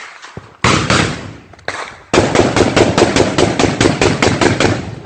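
Gunfire: a few separate single shots, then from about two seconds in a sustained automatic burst of about six rounds a second that lasts some three seconds, very loud.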